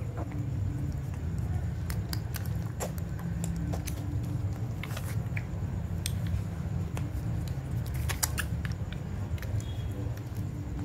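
Newborn puppies suckling at their mother's teats: scattered small wet smacks and clicks, with one or two faint squeaks, over a steady low hum.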